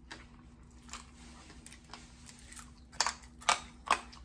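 Crunching on crispy fried bone-in fish: a quiet stretch of faint small crackles, then three sharp crunches close together near the end.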